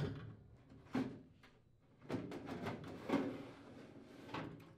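Furnace blower assembly's sheet-metal housing being slid along its support rails: a couple of sharp knocks, then about two seconds of metal scraping on metal with a few more knocks.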